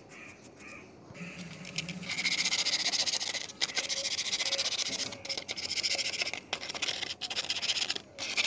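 Brush scrubbing rust off the steel back plate of an old wind-up alarm clock: a rasping scrape in quick strokes, starting about two seconds in, with a few short pauses.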